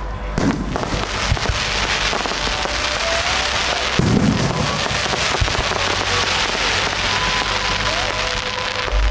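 Aerial fireworks display: a dense run of crackling firework effects. The heavier thud of a shell bursting comes about half a second in, and a louder one about four seconds in.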